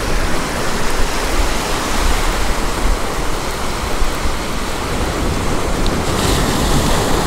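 Ocean surf washing onto a beach, with wind rumbling on the microphone: a steady, loud rushing noise.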